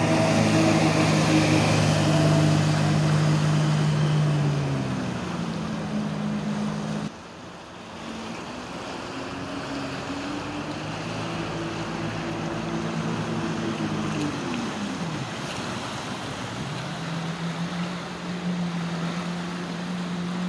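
Jet ski engine running at speed, a steady drone whose pitch sinks and climbs again twice, over the hiss of its spray. Loudest at first while it is close, with a sudden drop in level about seven seconds in.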